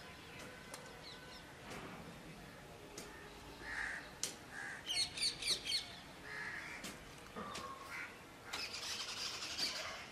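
Crows cawing a few times and small birds chirping, with a quick run of high chirps about five seconds in and denser chirping near the end. A few faint knocks come through between the calls.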